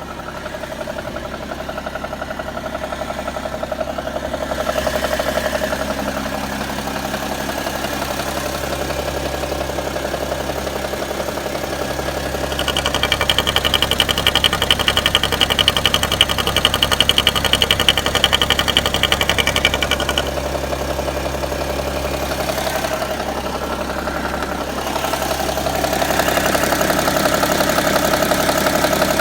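BMW E60's engine running at idle with an unidentified strange noise. A high, rapid buzzing joins it for several seconds in the middle.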